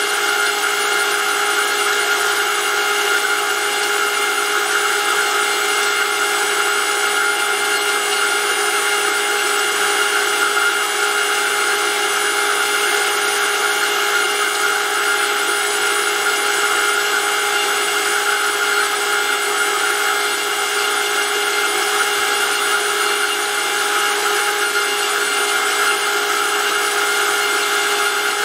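Brushless electric motor driving a gear-type oil pump, running at a steady speed with a steady whine.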